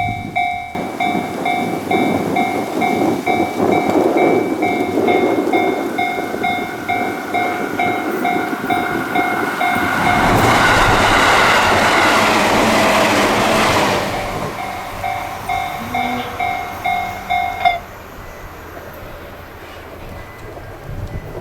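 Japanese railway level-crossing alarm ringing its electronic bell, about two strikes a second, while a train runs through the crossing. The train's rushing noise is loudest around the middle. The bell stops about three-quarters of the way in, leaving a quieter hum.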